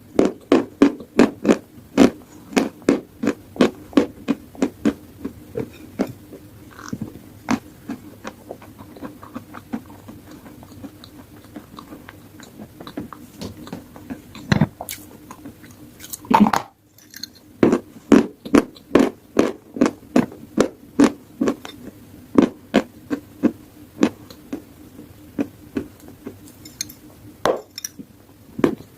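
Close-miked chewing of dry edible chalk with paste: quick, regular crunchy bites, about three a second, with a brief pause a little past the middle.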